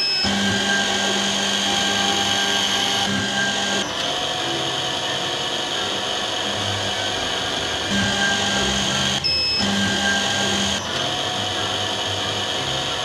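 Spindle motor of a CT 5412 automatic lens drilling machine running steadily while it drills holes in eyeglass lenses. The tone shifts about four seconds in and again around nine seconds.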